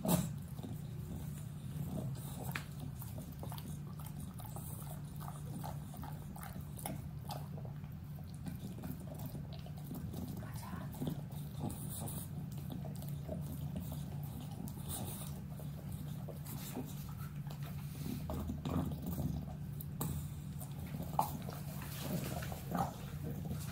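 English bulldog chewing a tomato: wet smacking and short clicks from its mouth over a steady low hum, with a few louder smacks near the end.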